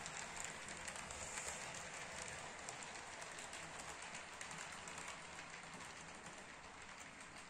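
HO-scale model train running along the track: a steady rolling rattle of small wheels on rail, full of fine clicks, growing quieter near the end.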